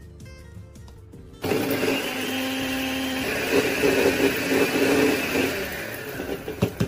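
Electric mixer-grinder switched on with its small steel dry-grinding jar, grinding mace, nutmeg and cardamom seeds to powder. The motor starts suddenly about a second and a half in, runs steadily, then winds down, with a few sharp knocks near the end.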